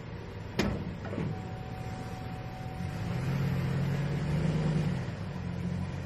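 Pickup truck engine running at low speed while it backs a sawmill trailer, with a sharp knock about half a second in and a lighter one a moment later. The engine gets louder for a couple of seconds in the middle.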